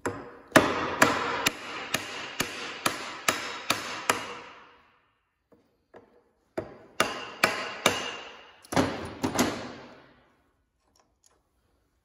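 Hand hammer blows on the end of a Hendey lathe spindle, driving it out of the headstock. Each strike rings on briefly. About nine blows come at roughly two a second, then after a pause two shorter runs of about seven more.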